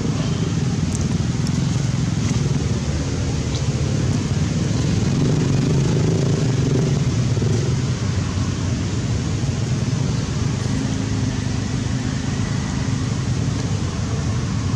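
A steady low rumble, with a few faint ticks in the first few seconds.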